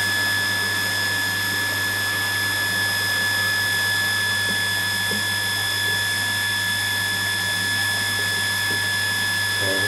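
Hot water wash pump on a milk silo's cleaning system running steadily under test, a constant high whine over a low hum, with hot water flowing at 19 litres a minute.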